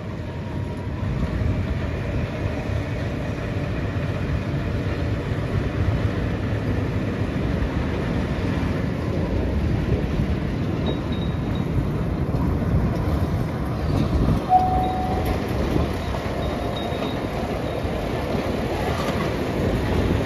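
Narrow-gauge diesel cane-train locomotive passing slowly with its engine running, followed by a string of cane bins rolling over the rails in a steady rumble. There is a short squeak about two-thirds of the way through.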